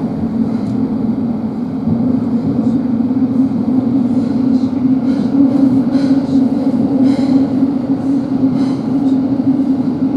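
A Thameslink Class 700 electric multiple unit heard from inside the carriage while running: a steady rumble and hum of wheels on rail and traction, getting louder about two seconds in.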